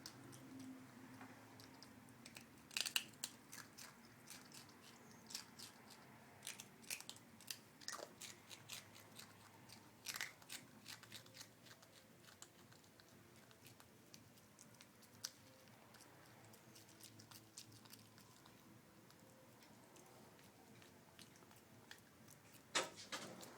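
A monkey eating, with irregular crunching and chewing clicks and quiet gaps between them.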